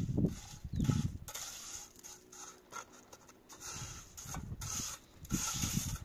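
Masonry trowel scraping and spreading cement mortar along the top of a concrete block wall, in irregular strokes that come near the start and again over the last two seconds, with a quieter stretch in between.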